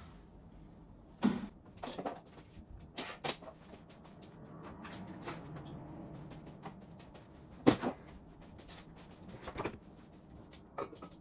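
Kitchen cupboard doors and household items handled on the counter: a series of scattered knocks and clacks, the loudest a little over a second in and again just before the eight-second mark, with a soft rustle in the middle.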